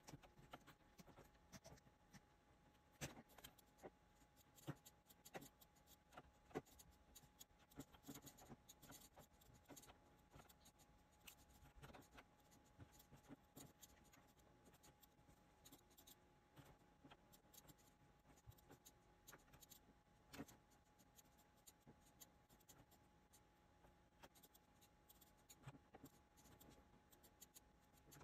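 Faint, irregular taps and scratches of a stylus drawing on a Cintiq pen display's screen, mixed with occasional clicks of mechanical keyboard keys pressed for shortcuts.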